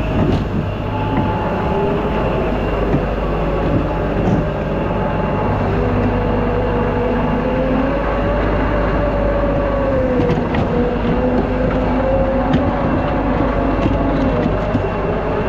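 Skid steer loader running while pushing snow with its bucket: a steady engine drone with a hydraulic and drive whine that slowly rises and falls in pitch as the machine works.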